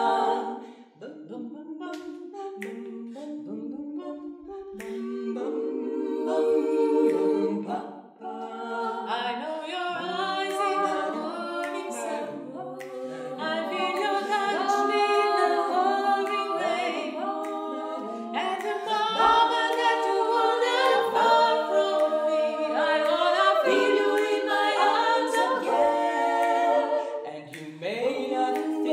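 Female vocal quartet singing a cappella in close four-part harmony, the voices growing fuller and louder about nine seconds in.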